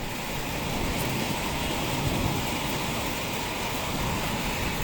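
Very heavy rain pouring down, a steady dense hiss.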